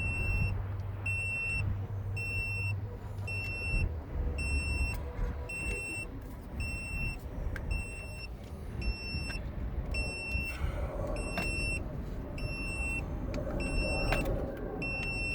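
Portable lithium jump starter pack beeping over and over while clamped to the truck battery: short, high, evenly spaced beeps, a little more than one a second. The men do not know why it is beeping and guess that it is signalling after a failed jump attempt or a low charge.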